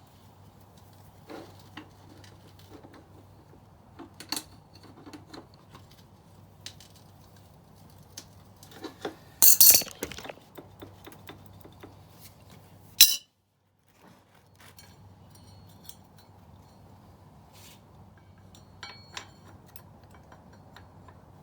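Hand tools and metal motorcycle parts clinking and clanking in irregular short knocks, with a louder cluster of clanks about nine to ten seconds in and a sharp loud clank at about thirteen seconds.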